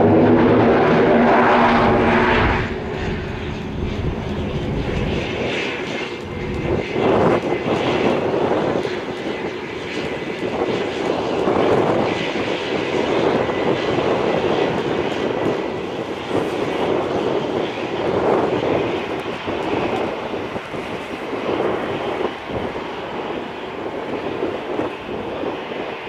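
Cessna 425 Conquest I's twin Pratt & Whitney PT6A turboprops running as the aircraft taxis. A loud, steady propeller drone fills the first two and a half seconds, then the sound drops to a quieter, wavering engine noise with a faint steady high whine.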